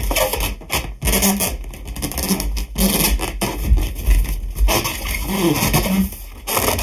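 Hands rubbing and squeezing an air-filled sheet-latex balloon: rubber scraping with short squeaks, one of them bending in pitch about five seconds in.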